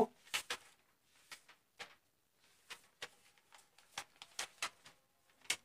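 Paper pages being leafed through: faint, scattered rustles and light ticks, about a dozen, with one slightly sharper near the end.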